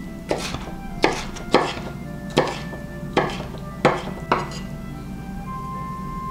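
Chef's knife chopping tomato on a wooden cutting board: about seven sharp knocks at uneven intervals, stopping about four and a half seconds in.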